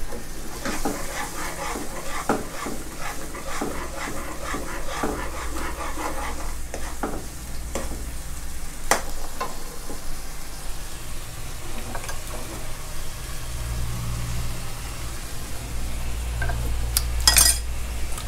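A metal ladle stirs and scrapes a thick chili-paste sauce in a granite-coated wok, about three strokes a second for the first seven seconds, over the sauce's steady sizzle as it simmers on medium heat. A few single ladle taps follow, then a sharp metallic clink near the end.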